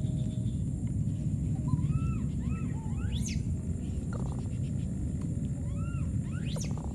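Baby macaque calling: a series of short arching coo calls with a couple of shrill rising squeals, over a steady low rumble.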